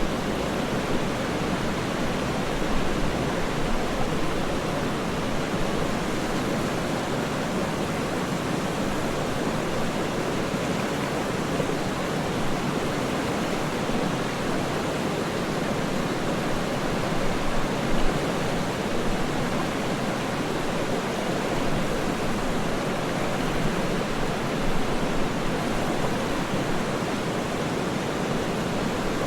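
Waterfall: the steady, unbroken rush of falling water, with small flickers in loudness.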